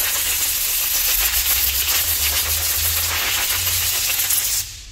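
Compressed air hissing steadily from an air gun blown into the carburetor of a Stihl BR 430 blower to clear out internal dirt, cutting off suddenly near the end.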